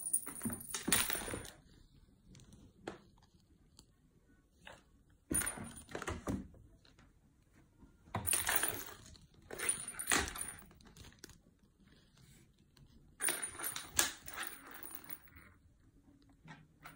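Metallic jingling of a cat wand toy as a kitten swats and tugs at it, in about five short bursts a few seconds apart.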